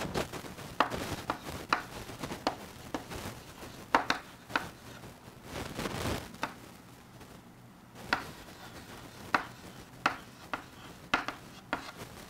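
Chalk writing on a greenboard: irregular short taps and scratching strokes as words are written, with a brief pause about seven seconds in.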